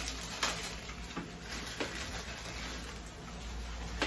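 Food sizzling on a tabletop barbecue grill pan, with a few sharp clicks of chopsticks against the pan and dishes.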